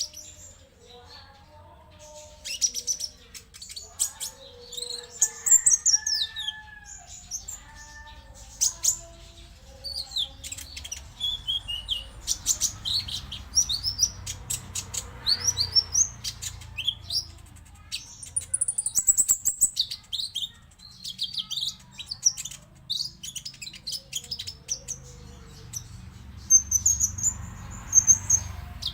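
Olive-backed sunbird (konin) singing: rapid, high-pitched chirps, sharp ticks and short twittering trills, one burst after another, over a faint low hum.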